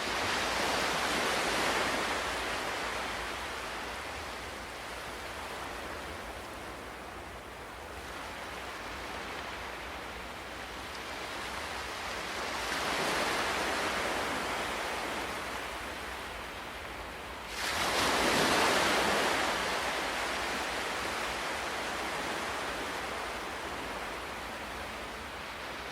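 Ocean waves breaking on a shore and washing back, three surges: one near the start, one about halfway, and a sharper crash around two-thirds in, each swelling and then fading into a steady hiss of surf.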